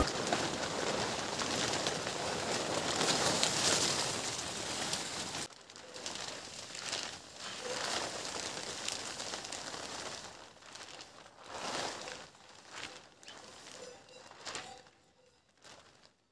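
Large plastic tarp rustling and crinkling as it is dragged and spread over a haystack. A steady rustle drops off abruptly about five seconds in, leaving scattered crinkles that fade toward the end.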